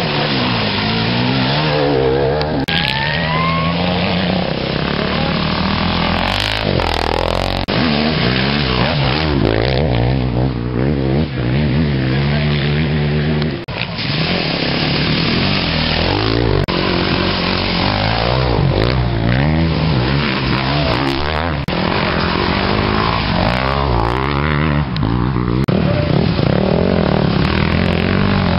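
Enduro dirt-bike engines revving up and down as several bikes ride one after another through a muddy water crossing, the engine note rising and falling with each throttle change and gear.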